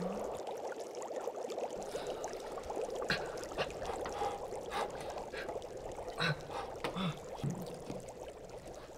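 Water bubbling in a pot with a steady fizzing, trickling sound. From about three seconds in there are about six sharp clicks and knocks, a few of them with a duller thud.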